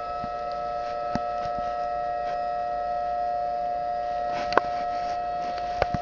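Recording of a Federal Signal Thunderbolt civil defense siren played back from a laptop, sounding a steady two-note chord with no rise or fall. A few sharp clicks come through, one about a second in and two near the end.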